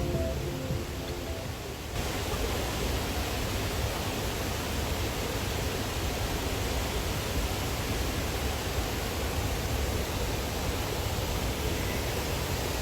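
Background music fading out. About two seconds in, it gives way to the steady, loud rush of a waterfall.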